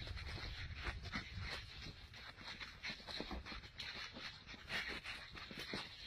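A dog and a piglet tussling: short scuffs and brief animal noises at irregular intervals over a low rumble.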